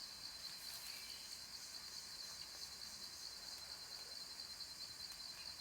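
Cicadas calling in a steady, high-pitched chorus with a fine rapid pulse.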